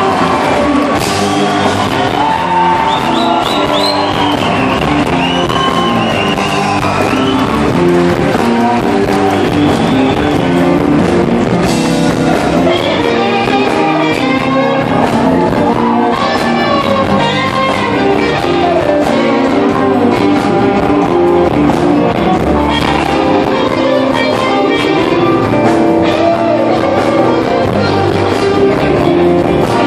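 Live electric blues band playing: electric guitars over electric bass and a drum kit, with bending guitar notes, heard loud and steady from the audience in a large hall.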